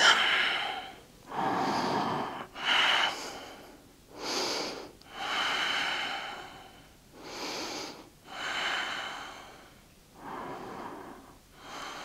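A woman's loud, deliberate yoga breathing while she holds a pose: slow, audible inhales and exhales in turn, each lasting one to two seconds, with brief pauses between them.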